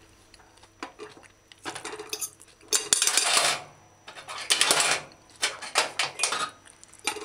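Metal fork scraping and clinking against a ceramic plate in a string of separate strokes, the loudest scrapes about three and about four and a half seconds in.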